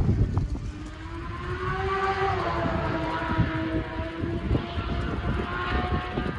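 A vehicle engine's steady pitched hum as it goes by, dipping slightly in pitch about two and a half seconds in, over a low rumbling noise.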